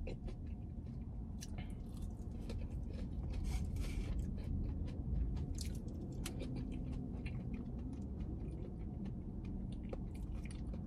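Close-up chewing of fried cauliflower bites, many small crunching clicks from the mouth, over a low steady hum.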